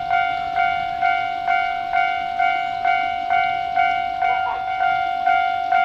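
Japanese level-crossing warning bell ringing a steady "kan-kan" at about two strikes a second, each strike a bright ringing tone that fades before the next. It signals that a train is approaching and the crossing is closing.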